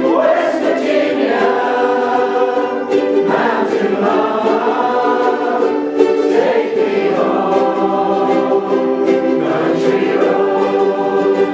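A ukulele group strumming and singing a song together, many voices singing as a chorus over the ukuleles.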